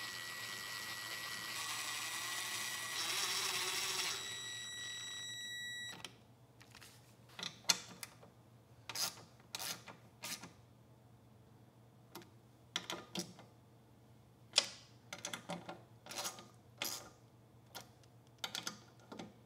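Ryobi cordless drill running steadily with a high whine while driving the inverter module's mounting bolts, a little louder just before it stops about six seconds in. After that, scattered light clicks and knocks of parts and wire connectors being handled.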